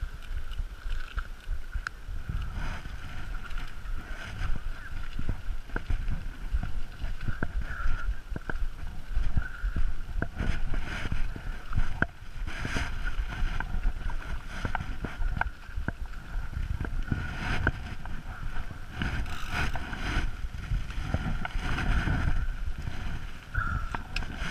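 Mountain bike riding down a rough dirt trail: wind rumbling on the camera's microphone, with frequent clattering knocks from the bike over the ground and a steady high whine underneath.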